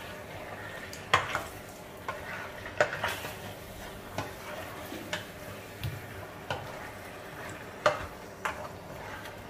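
Spatula stirring raw chicken pieces in a stainless steel pot, knocking and scraping against the pot's side at irregular moments about once a second, with a faint frying sizzle underneath.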